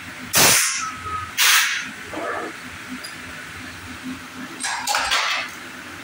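Hot-chamber zinc die casting machine working through its cycle: short, loud bursts of noise, two about a second apart near the start and two more close together near the end, over a faint steady low hum.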